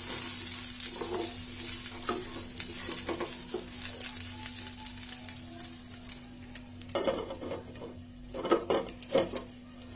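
Vegetables sizzling in oil in a kadhai while a wooden spatula stirs and scrapes them. Near the end a glass lid knocks and clinks against the pan's rim several times as it is set on.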